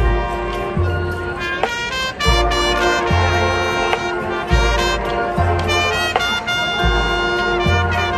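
Marching band playing: brass and saxophones over a low bass line that moves between notes about once a second.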